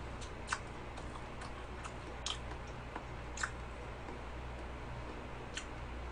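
Quiet sounds of eating cheesecake with a fork: a handful of soft, scattered clicks of fork and mouth, over a low steady hum.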